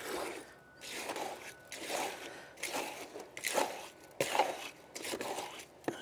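Bare hands squishing and scraping through wet, soupy concrete mix in a plastic mixing tub, in a series of irregular strokes about one every half second to a second.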